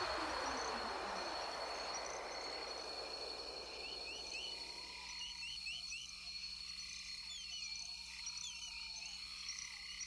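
Jungle ambience recording with frogs calling in quick, repeated chirps over a steady high whine. A falling whoosh fades out over the first few seconds.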